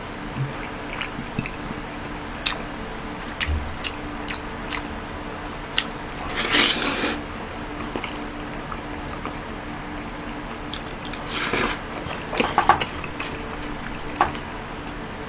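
Close-up eating sounds: wet chewing of cheese tteokbokki and noodles with scattered small clicks, and two loud slurps of about a second each, about six seconds in and again about eleven seconds in.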